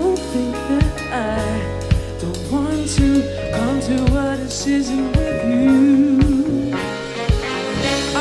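Live funk-soul big band playing, with a male vocalist singing the melody over a steady drum beat and sustained chords from the band.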